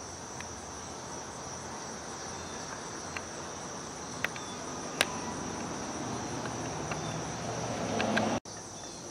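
Steady, high-pitched insect chorus over a low background hum of distant traffic, with a few faint clicks. Near the end the traffic noise swells and then cuts off suddenly.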